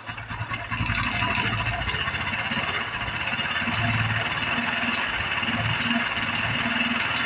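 Honda Biz 110i single-cylinder four-stroke engine running with a heavy knocking rumble from inside the engine, a little louder from about a second in. It first passed for a connecting-rod knock; the fault was traced to the camshaft.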